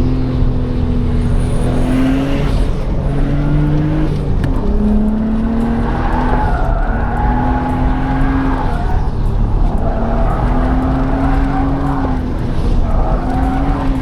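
Nissan R32 Skyline's RB20DET turbocharged inline-six driving under load, its note rising and then dropping back several times. It is running smoothly after new injectors and a new mass airflow sensor have cured a misfire.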